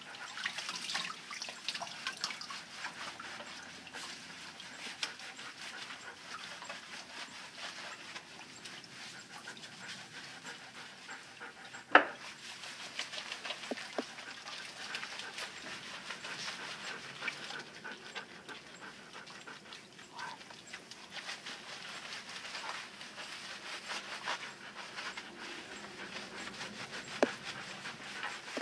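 Standard poodle panting while hands scrub its wet, lathered coat, with one sharp knock about twelve seconds in and a smaller one near the end.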